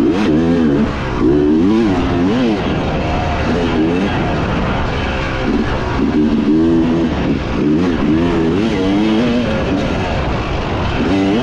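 Dirt bike engine revving up and down as it is ridden, its pitch climbing and dropping again every second or two.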